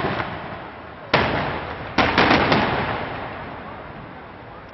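Aerial fireworks shells bursting overhead: one bang about a second in, another near two seconds followed by a quick run of sharper bangs, each fading away slowly.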